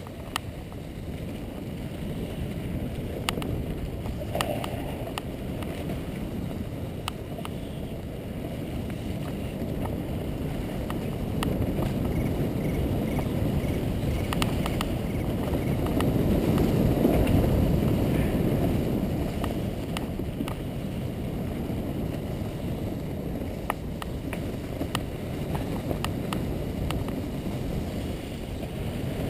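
Mountain bike descending a leaf-covered forest trail: a steady low rumble of wind buffeting the camera microphone and tyres rolling over leaves and dirt, louder about halfway through, with scattered sharp ticks and rattles from the bike.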